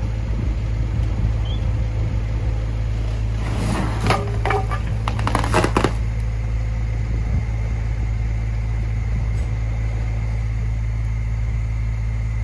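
A mini digger's diesel engine running steadily with a low drone. About four to six seconds in, a burst of crackling and scraping as the heavy bag of stone is dragged off the pickup's bed.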